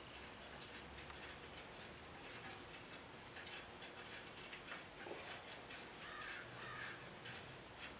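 Faint, quick, irregular light clicking and ticking of hand tools on metal, from work on the underside of a Cummins diesel engine to free the oil pickup tube and oil pan.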